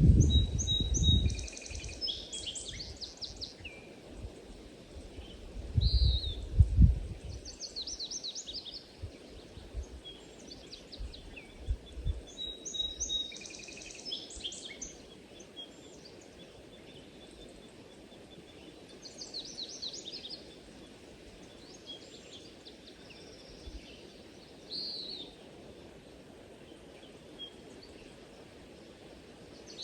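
Songbirds singing short, repeated high trilling phrases every few seconds over a steady faint background hiss. A couple of brief low rumbles come at the start and about six seconds in.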